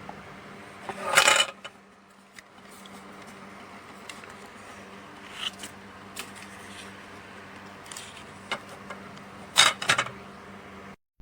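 Clattering and clicking of small hard objects being handled: a loud cluster about a second in and another near the end, with a few lighter clicks between, over a steady hum. All of it cuts off suddenly just before the end.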